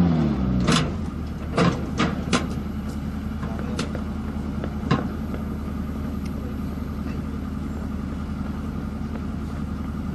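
Engine of the FH77B howitzer's auxiliary power unit idling steadily, with a few sharp metallic clicks and knocks in the first five seconds.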